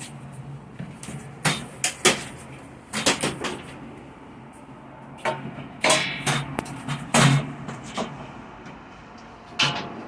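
Irregular knocks and clattering from accordion shutter parts being handled and worked on, with a steady low hum underneath.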